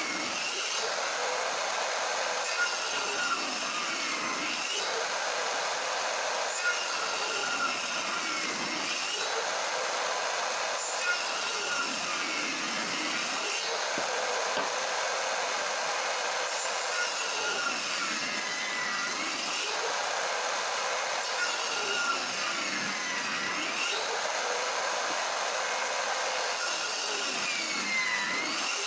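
Bosch table saw running and cutting wood in repeated passes to form tenons. Its whine dips in pitch under load with each cut every few seconds, then recovers.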